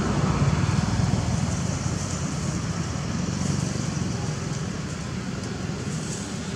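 Steady low rumble of passing road traffic, slowly fading away.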